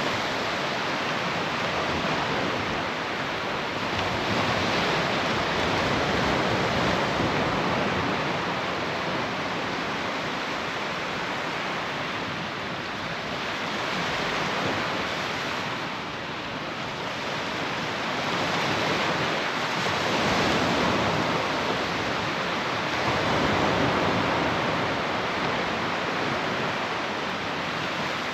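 Surf breaking on the beach, a steady wash of noise that swells and eases every few seconds.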